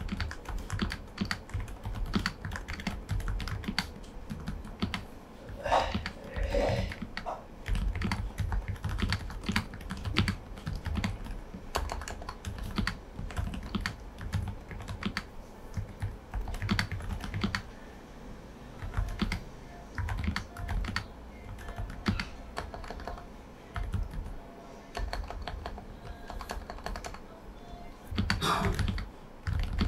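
Typing on an Aula F98 Pro V2 mechanical keyboard fitted with silent switches: a continuous run of soft key presses, with a few heavier clusters of strokes about six seconds in and near the end.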